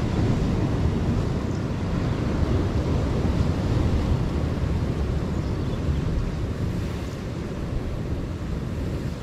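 Wind rumbling on the microphone over surf washing against a rocky shoreline.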